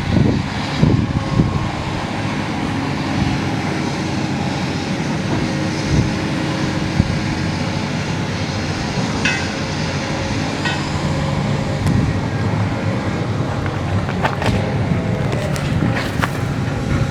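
Diesel engine of road-repair machinery running steadily, with a few sharp metallic clicks near the end.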